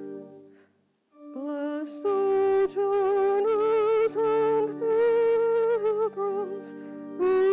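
Church organ releases the final chord of a hymn verse. After about a second of near silence, the organ and a singing voice with vibrato begin the next verse.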